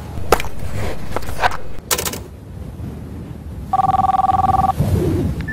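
A few sharp clicks over a low rumble, then about a second of an electronic telephone ring, two tones trilling rapidly together, ending with a short beep.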